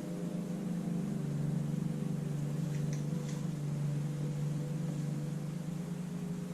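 A steady machine hum, with a couple of faint clicks about halfway through.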